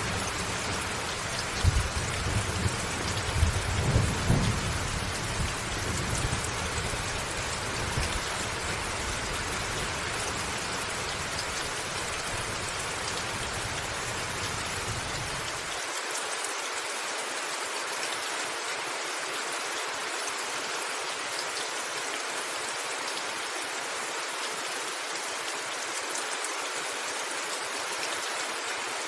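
Steady rain on a roof with thunder rumbling in the first few seconds, the rumble fading away. About halfway through, the low rumble cuts off suddenly and only the even hiss of the rain remains.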